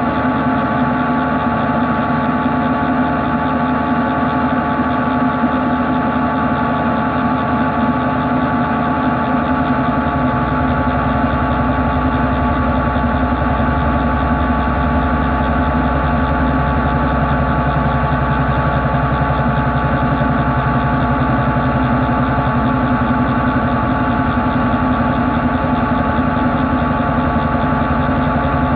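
CNC machining center cutting grey cast iron with a long-reach vibration-damped boring bar turning at 616 RPM: a steady machine hum with several held tones. A deeper rumble joins about a third of the way in.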